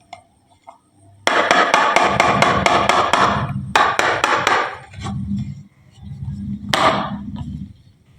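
Marbles clattering down a wooden HABA marble-run slope. A rapid, even run of clicks starts about a second in and comes back in a second burst, followed by a lower rolling rumble with one more click near the end.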